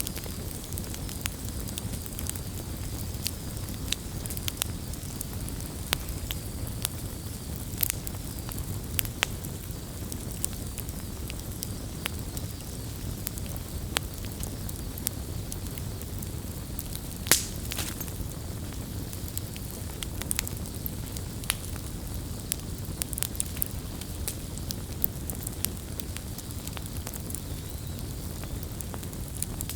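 Open wood fire burning with a steady low rumble and scattered sharp crackles and pops, one louder pop a little past halfway.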